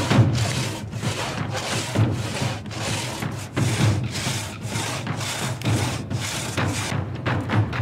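Large Japanese hand saw (nokogiri) cutting through a thick pine log, in steady strokes about two a second.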